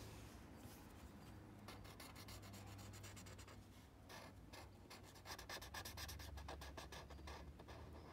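Faint scratchy rubbing of a paper tortillon worked in quick short strokes over a paper tile, blending pencil graphite shading. The rapid strokes start about two seconds in.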